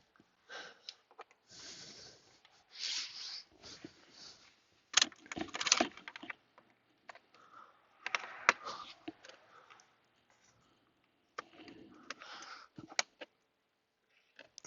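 Hand tools and plastic console trim being handled while a car's center console is bolted back in: scattered clicks, clinks and scrapes with a few short hissy bursts. The sharpest clicks come about five seconds in and again a few seconds later.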